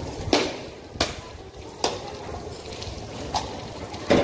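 A few sharp knocks or taps at uneven gaps, roughly one a second, over a steady background hiss.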